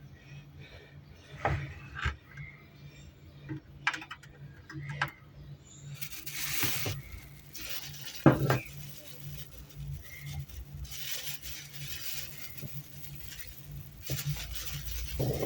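Small hard objects being handled: scattered clicks and knocks, one louder knock about eight seconds in, with stretches of rustling and scraping over a steady low hum.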